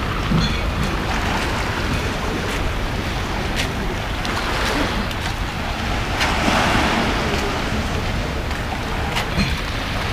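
Small waves washing onto a pebble beach in slow swells, with wind rumbling on the microphone.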